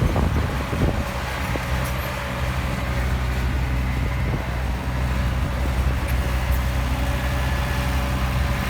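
Heavy diesel engine running steadily under a low, even drone, with a few short knocks in the first second.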